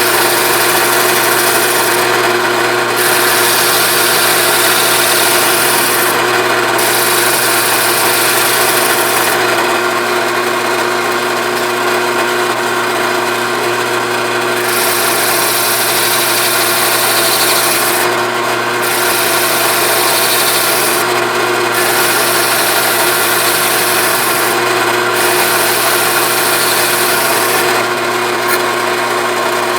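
Drill press running steadily with a sanding disc chucked in it, its motor humming, while the disc sands a wooden board being moved beneath it. A high abrasive hiss of disc on wood comes and goes, breaking off for a moment every few seconds.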